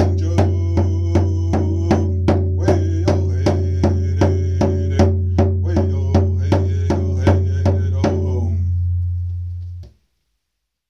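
Outro music: evenly spaced drum hits, about two and a half a second, over a held low bass note. The drums stop about eight seconds in and the music fades out a second or so later.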